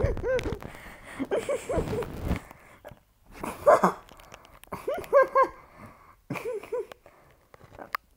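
A dog barking and whining: short runs of pitched cries come several times, with quieter pauses between them.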